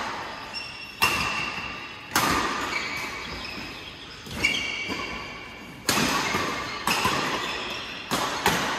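Badminton rackets striking a shuttlecock in a fast doubles rally: about seven sharp smacks at irregular intervals of roughly a second, each one ringing on in the large metal-walled hall.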